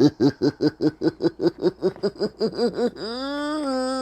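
A voice laughing in a rapid, even "ha-ha-ha", about six pulses a second, each rising and falling in pitch. About three seconds in it breaks into one steady held hummed or sung note.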